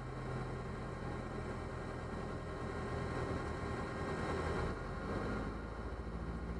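A Diamond DA40 single-engine plane's engine and propeller, heard inside the cockpit as a steady drone with a rush of air, while the plane is low on approach. About five seconds in the note changes: the higher rush fades and the low drone shifts to a slower pulsing.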